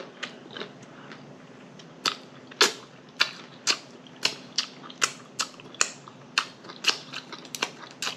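Mouth-open chewing of a cheeseburger with sharp lip smacks, about two a second, starting about two seconds in.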